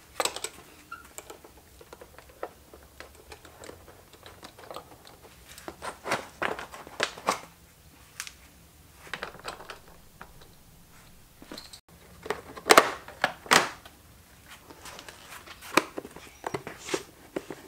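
Scattered plastic clicks and knocks from hands working the rear fender and taillight assembly of a Honda CRF450RL loose, with the loudest knocks in clusters about six to seven seconds in and again around thirteen seconds.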